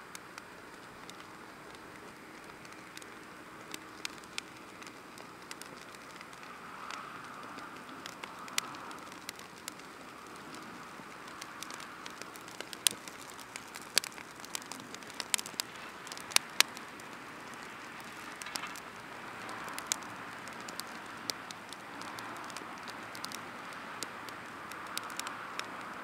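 Split firewood burning in a stainless steel fire pit, crackling with scattered sharp pops that come thickest around the middle, over a soft steady hiss.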